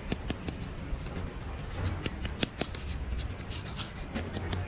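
Kinetic sand being worked and shaped: irregular light clicks, crunches and scraping.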